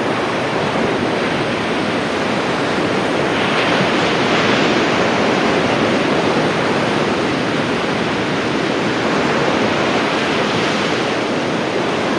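Ocean surf breaking and washing up a sandy beach: a steady rush that swells slightly about four seconds in.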